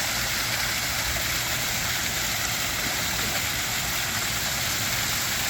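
Pondless waterfall running: a steady rush of water splashing down over rocks.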